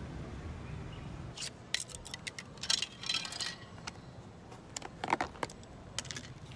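Chopsticks clicking and scraping against a takeaway bento bowl: a scatter of light clicks and clinks, busiest about three and five seconds in.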